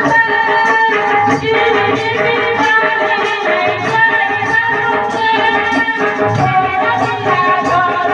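Devotional kirtan music: sustained melodic instrument lines over a steady, regular percussion beat.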